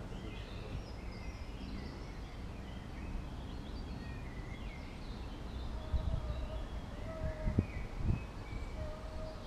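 Birds singing and chirping in the surrounding trees over a steady low background rumble. From about six seconds in, several short low thumps cut through.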